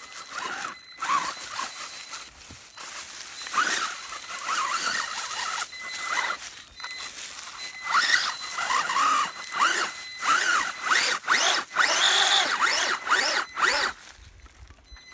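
WLtoys 12428 RC buggy's electric motor and geartrain whining up and down in repeated bursts of throttle as it climbs a steep slope, its tyres crunching and scrabbling through dry leaves and dirt. The revving is busiest and loudest in the second half and eases off near the end.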